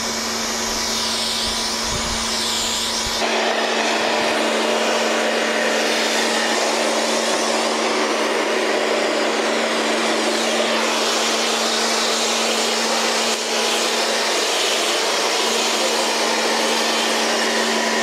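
Electric pressure washer running steadily, its pump motor giving a constant hum under the hiss of snow foam spraying from a foam lance onto a car. The spray hiss grows louder about three seconds in.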